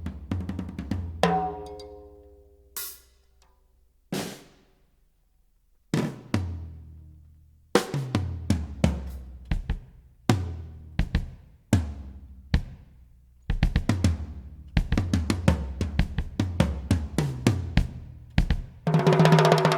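Drum kit hits played through a sound system as a sound check: single kick, snare and cymbal strikes with long booming decays and gaps between them, coming quicker and closer together in the second half. Pitched music starts just before the end.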